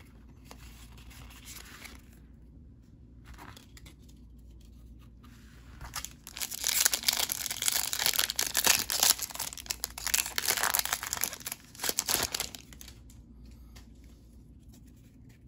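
A Yu-Gi-Oh booster pack's foil wrapper being crinkled and torn open by hand, loud crackling from about six seconds in until about twelve, after quieter handling.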